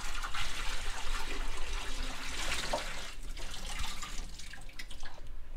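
Water pouring out of an upturned five-gallon plastic water jug and splashing into a hammered copper kitchen sink as the jug is emptied, with brief dips in the flow partway through.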